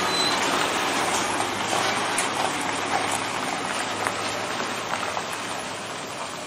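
Mitsubishi Fuso dump truck driving off over a gravel road: a steady rushing noise of tyres on gravel and the running engine, slowly fading.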